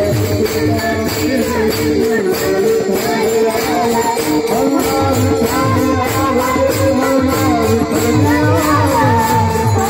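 Marathi Warkari devotional bhajan (panchapadi): many small brass taal hand cymbals clashing in a steady rhythm over steady held notes and a repeating low beat, with singing that rises and falls from about three seconds in.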